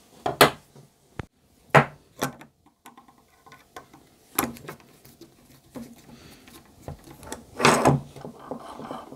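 Sharp knocks and clunks of a steel threaded lead screw, with its nut and bearing, being handled and set down on a wooden workbench: about five distinct knocks with faint rattling between them.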